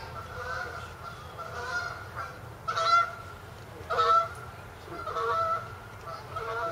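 Geese honking over and over, about one call a second, the two loudest honks about three and four seconds in.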